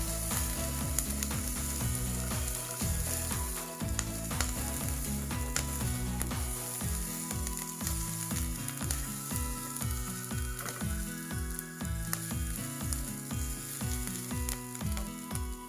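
Ingredients sizzling in hot oil in a frying pan as a stir-fry cooks, with the spatula clicking and scraping as it stirs. Background music with a steady beat plays underneath.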